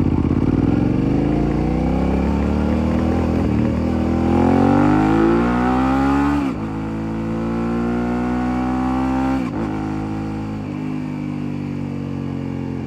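Motorcycle engine accelerating from a stop, its pitch climbing and then dropping sharply with each upshift: once about halfway through, twice more a few seconds later, before settling at a steady cruise. Heard close to the exhaust.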